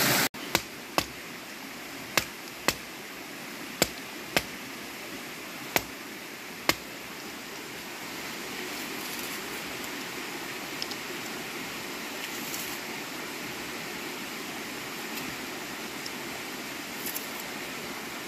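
Small rocky stream running steadily. In the first seven seconds there are eight sharp, irregularly spaced knocks; after that only the stream is heard.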